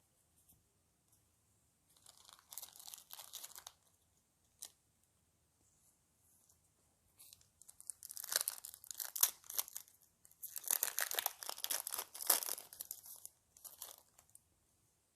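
Foil booster pack wrapper being torn open and crinkled by hand, in several bursts of tearing and rustling.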